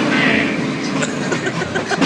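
Monster truck engine running.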